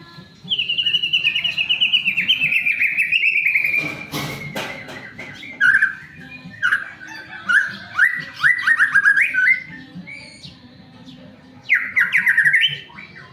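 White-rumped shama singing: a fast, slightly falling trill for about three seconds, a brief harsh rasp, then a string of quick rising whistled notes and another short trill near the end.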